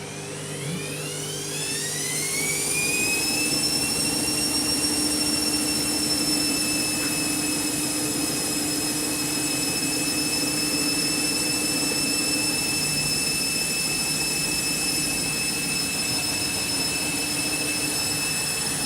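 Candy washing machine going into its final spin with an overloaded drum. The motor whine rises over the first few seconds, then holds at full speed on a 1200 rpm spin.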